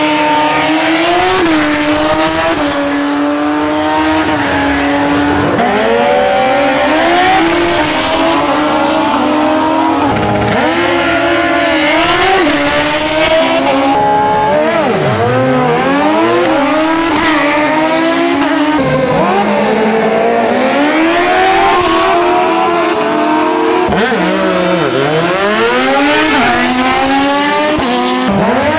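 Drag-racing motorcycle engines revving and accelerating, loud throughout. One engine holds a steady high rev for the first few seconds, then several engines rise and fall in pitch over one another.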